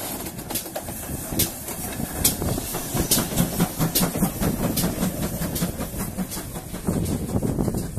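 Great Western Railway 56xx class 0-6-2 tank locomotive running past close by: a steady rumble and hiss of steam, with many sharp clanks and clicks from the wheels and motion, the rumble swelling near the end.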